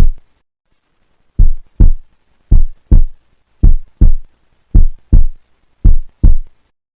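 Heartbeat sound effect: deep lub-dub double thumps, about one pair a second, after a pause of just over a second.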